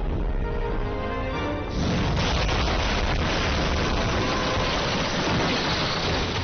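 Drama score background music: a few held notes, then a dense, noisy surge from about two seconds in that carries on steadily.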